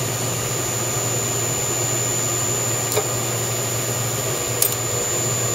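A CNC mill's VFD-driven spindle runs a tapping head with an M5 roll-form tap as it threads holes, giving a steady machine hum with a faint high whine. Two sharp clicks come through, one about halfway through and one near the end.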